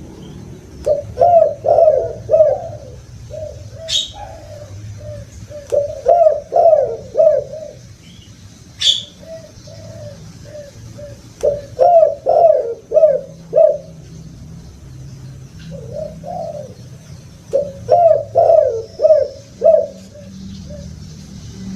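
Spotted dove (tekukur) cooing in repeated phrases of several quick, low coos, a few seconds apart. Two short, sharp high chirps come about 4 and 9 seconds in.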